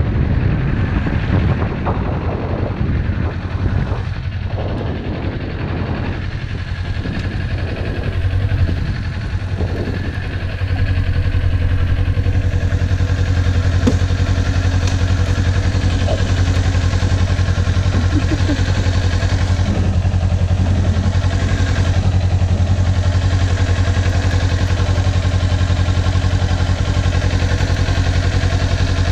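Kawasaki Ninja motorcycle engine running at low speed as the bike rolls and slows, then idling steadily from about ten seconds in.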